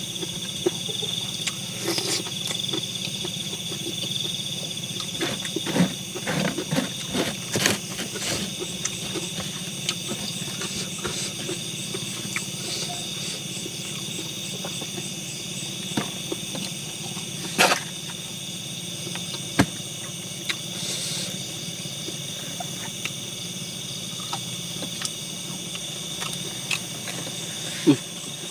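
Steady high-pitched insect chirring, with scattered clicks and knocks, a cluster of them about six to eight seconds in.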